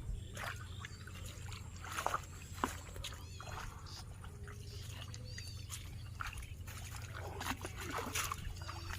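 Water trickling and splashing, with many scattered short splashes or taps and a few brief high chirping calls from a small animal.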